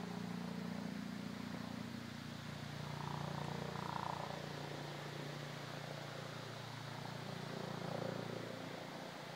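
A distant engine drone, low and steady, that drops a little in pitch about two and a half seconds in, like an aircraft or vehicle passing. A few faint higher sounds come through around the middle and near the end.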